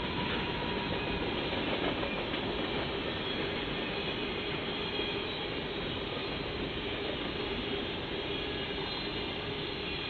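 A CSX freight train's cars rolling past at speed: a steady noise of steel wheels running over the rails.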